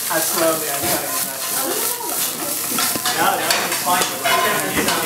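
Korean wild mountain greens sizzling as they stir-fry in a hot nonstick frying pan, with a wooden spatula scraping and pushing them around the pan.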